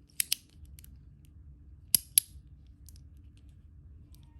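Metal fidget slider being snapped back and forth by hand, giving sharp metallic clicks in pairs: one pair near the start and another about two seconds in, with a few faint ticks between.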